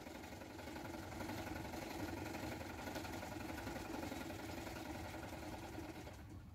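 A faint engine running steadily in a low hum, fading out near the end.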